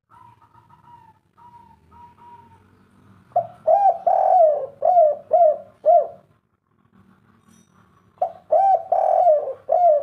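Spotted dove cooing: two loud phrases of about six quick coos each, the first starting about three seconds in and the second near the end. Softer notes come in the first couple of seconds.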